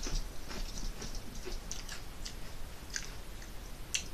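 A person chewing potato chips: irregular crisp crunches, a few a second.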